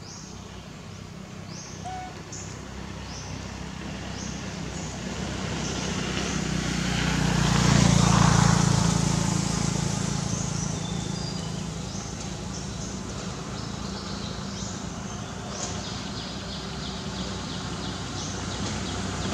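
A passing engine's hum swells to its loudest about eight seconds in, then slowly fades, with short high bird chirps repeating throughout.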